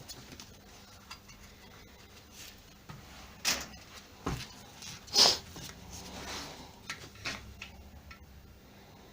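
Tools and alternator parts being handled: scattered light clicks and knocks, with two louder knocks a little past the middle.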